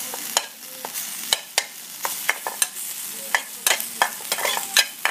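Metal spatula scraping and knocking against a stainless steel frying pan while minced chicken in curry paste is stir-fried, about two to three irregular strokes a second over a steady sizzle.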